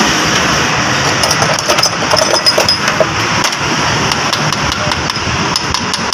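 Quick repeated hammer taps on a steel punch set against the output shaft of a power window motor's gear housing, peening the shaft so it won't pull out. Several sharp taps a second start about a second in and keep going, over a steady loud background noise.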